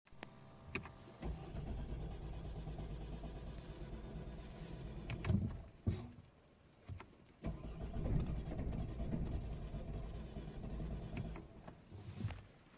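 Ford car engine starting, running for about four seconds and cutting out, then starting again about two seconds later and dying again after about four seconds. The stalling is the sign of a broken electronic throttle body actuator (fault P02FA).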